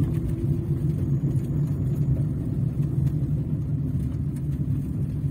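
Car engine and road noise while driving slowly along a city street: a steady low hum with no sudden events.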